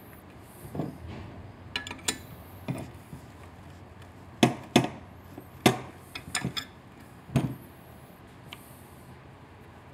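Stainless-steel exhaust header pipes and a wrench knocking and clinking against a steel workbench as the header is handled and its O2 sensors fitted: a scattered series of sharp metallic knocks, loudest around the middle.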